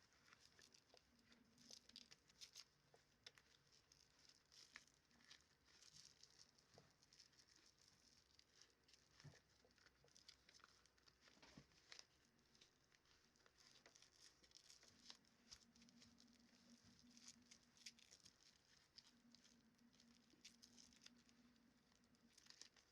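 Near silence with faint, scattered light ticks and rustles, and a faint low hum that comes and goes.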